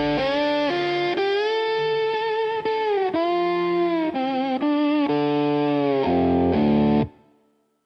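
Instrumental dark country music: a guitar plays a slow lead melody with wavering vibrato over a bass line. The music cuts off about seven seconds in.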